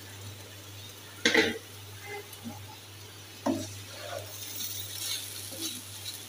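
Wooden spatula stirring and fluffing cooked rice in a metal kadai, with two sharp knocks about a second and three and a half seconds in.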